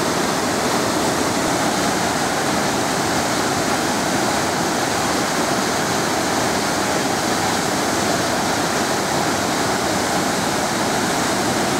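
A waterfall: a steady, even rush of falling water that doesn't vary.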